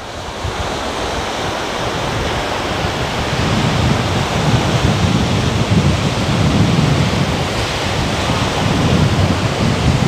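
Strong sea wind buffeting the microphone in rumbling gusts, louder from about three seconds in, over the hiss of surf breaking on the beach.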